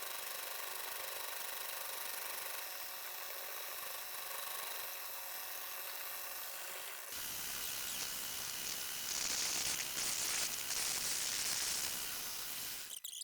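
Electric drill running with a steady whine as a 6.5 mm bit bores handle holes through a spring-steel blade blank. About seven seconds in, the sound turns louder and rougher.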